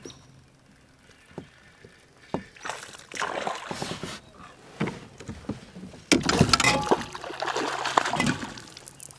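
Hooked bass thrashing and splashing at the water's surface beside the kayak, in two bouts: a short one about three seconds in and a longer, louder one from about six seconds in.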